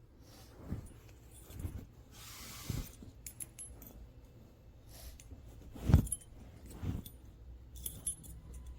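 A dog's metal collar tags jingling lightly among several soft thumps of movement, the loudest thump about six seconds in.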